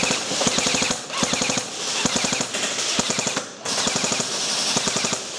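Airsoft guns firing long full-automatic bursts, a rapid rattle of shots, with short breaks about a second in and again near three and a half seconds.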